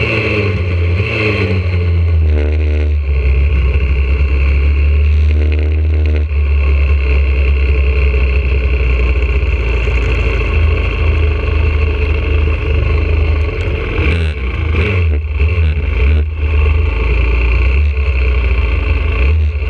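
YCF 125cc four-stroke single-cylinder pit bike engine heard from on board, revs falling in steps as the bike slows in the first few seconds, then running at low revs while rolling slowly. The revs rise and fall briefly a few times near the end.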